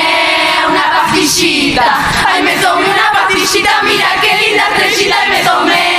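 A murga chorus of many voices singing together through the stage PA.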